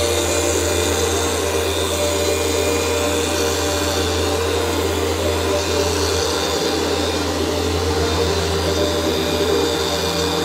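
Handheld electric car polisher running steadily as its pad buffs car paint during paint correction.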